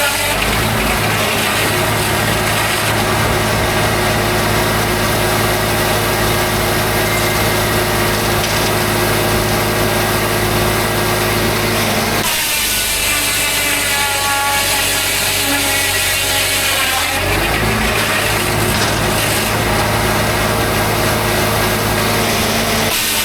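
Homemade circular sawmill sawing a large white pine log: the blade cutting through the wood over a steady low drone from the mill's power unit. The sound shifts abruptly about halfway through and again a few seconds later.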